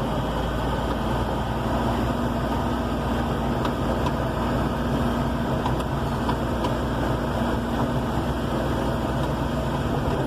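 Vehicle engine running steadily while driving along a rough dirt road, with road rumble and a few faint clicks.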